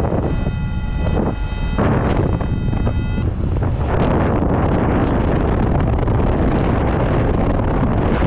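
Rushing airflow buffeting the microphone in paraglider flight, loud and steady throughout. For the first three seconds a steady electronic tone from the variometer sounds over it, then stops.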